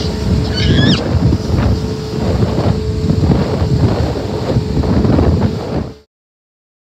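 Wind buffeting the microphone on a moving motorboat, with a steady hum under the gusty rush of wind and water. It cuts off suddenly about six seconds in.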